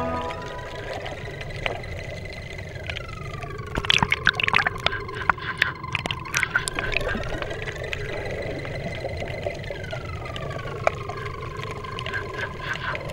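Underwater sound picked up by a submerged camera: steady water noise with a cluster of sharp clicks and pops about four to seven seconds in, and faint tones that slowly glide up and down again and again.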